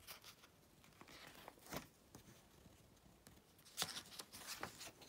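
Pages of a paperback picture book being turned by hand: a soft papery rustle about a second in, then a louder swish of a page turning near four seconds in.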